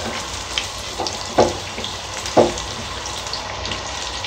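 Green bell pepper (capsicum) pieces sizzling in oil in a nonstick frying pan as they are lightly sautéed, with two short, louder strokes of the spatula stirring them about one and a half and two and a half seconds in.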